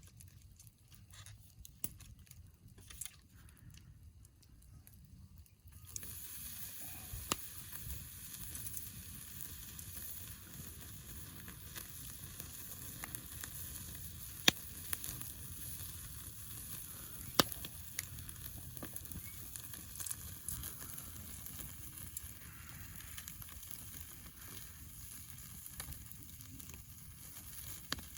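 Steak sizzling on a grill net over a wood campfire, with a few sharp pops from the fire. The sizzle starts suddenly about six seconds in, after a quieter stretch of small clicks, then runs on as a steady hiss.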